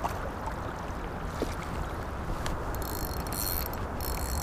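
River water running steadily around the wading angler. About three seconds in, a spinning reel is cranked in two short spells, a high whirring with a brief pause between them.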